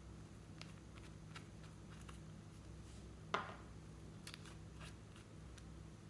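Faint plastic clicks and taps from handling and twisting the caps of small cosmetic bottles, with one louder click about three seconds in, over a low steady hum.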